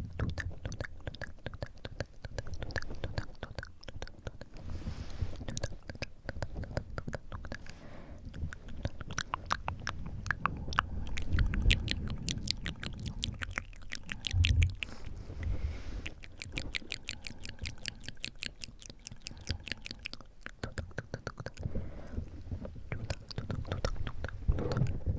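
Moist ASMR mouth sounds very close to the microphone: wet tongue and lip clicks, with two long runs of fast clicks in the middle. Breath blows onto the microphone as low puffs of wind noise, the loudest a little past the middle and near the end.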